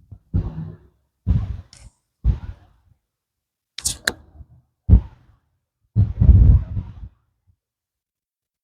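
A PCP air rifle fitted with a Red Corn Outdoors moderator fires once about four seconds in: a short, sharp crack with a second click right after it. Low thumps and rumbles come before and after the shot.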